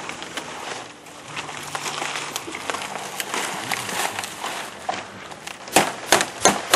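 Palm leaves rustling and crackling as they are folded and pressed onto a wooden rail for thatching, then a hammer nailing a leaf stem with a few sharp blows near the end.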